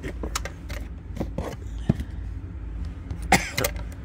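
Scattered light knocks and clicks of objects being handled, over a steady low hum, with one louder, breathy burst like a cough about three seconds in.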